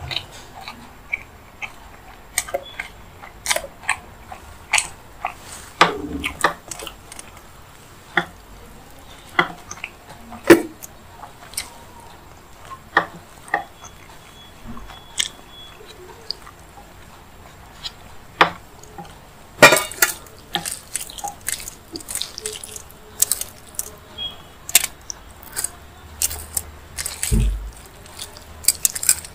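Eating by hand: wet chewing and mouth clicks, with fingers squishing and mixing rice and paneer curry, heard as sharp, irregular clicks about a second apart.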